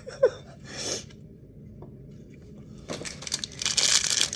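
Blind-pack packaging being torn and crumpled open by hand, a dense crinkling and crackling that starts about three seconds in.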